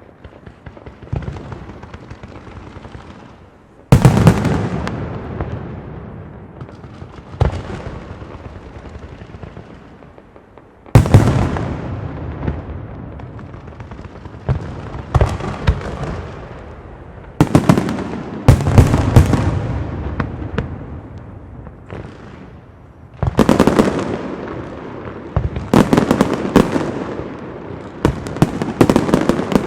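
Castillo aerial fireworks display: shells bursting in loud bangs every few seconds, each followed by a long crackling tail. The bursts come closer together toward the end.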